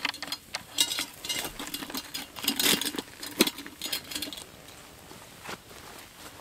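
Clinking and rattling of hot coals and metal on a cast iron dutch oven lid over a campfire: a busy run of small knocks and clinks that dies down about four seconds in.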